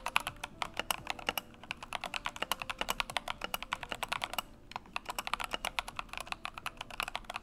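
Fast typing on a Tecware Phantom Elite mechanical keyboard with linear red switches and factory foam, giving a thocky sound: a quick run of key clacks, with a brief pause a little past halfway.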